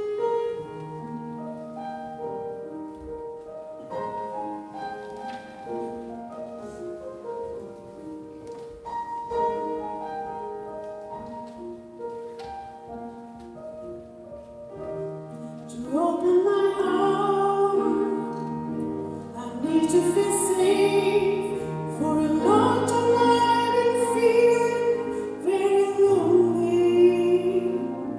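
Gospel song opening with a slow piano introduction of held chords; about halfway through, a singer comes in over the piano and the music grows louder.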